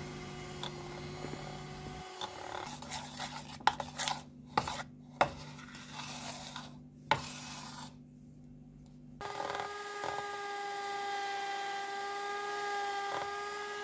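Frosting being mixed by hand in a bowl: several short scrapes and taps of a utensil against the bowl, over a faint hum. About nine seconds in, a steady pitched hum starts.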